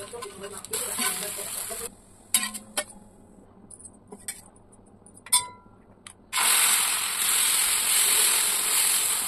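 Dosa sizzling on a hot iron tawa as it is lifted off with a spatula. The sizzle stops just before two seconds in, and a few clinks and taps follow. At about six seconds fresh dosa batter meets the hot tawa and a loud, steady sizzle starts.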